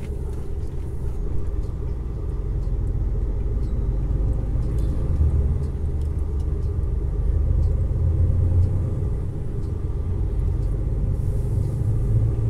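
Steady low rumble of a Jeep driving along a road, heard from inside the cabin: engine and tyre noise.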